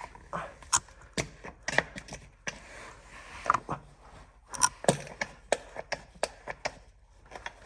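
Irregular sharp clicks and light knocks, a few each second, from handling the fluid bottle and its filler at the transmission fill-plug hole while transmission fluid is topped up.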